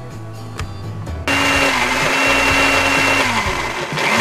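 Countertop blender switched on about a second in, its motor running at a steady high whine as it grinds sliced onion, ginger and garlic into a paste. Near the end the motor slows and its pitch falls, then it is switched back on and spins up again.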